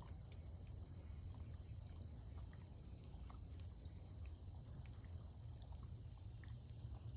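Faint outdoor ambience: a steady low rumble with scattered small ticks and clicks.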